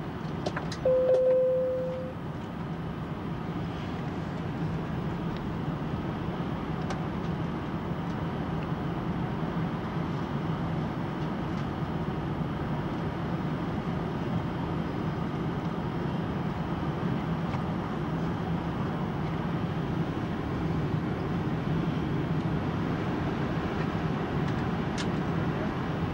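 Steady airliner cabin noise during the descent on final approach: a constant rush of engines and airflow with a low hum. A single-pitch cabin chime sounds about a second in and fades out.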